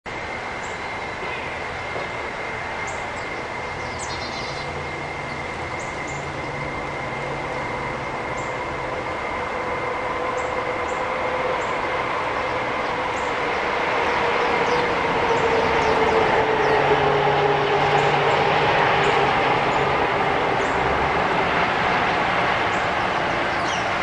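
Steady rumble of a passing vehicle that grows louder, peaks about two thirds of the way through, and carries faint tones sliding slowly lower; a few short high bird chirps sound over it.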